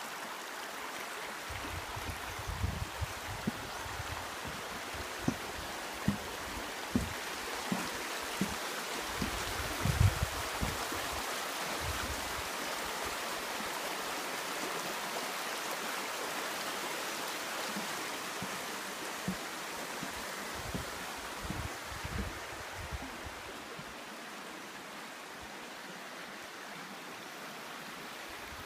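Steady rushing of a hill stream, with irregular low thuds under it, the loudest about ten seconds in.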